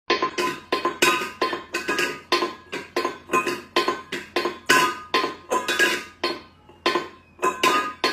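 A small stainless steel bowl clanking and rattling on a tiled floor as a cat knocks it about: quick metallic clanks, about three a second, each ringing briefly, with a short lull about six and a half seconds in.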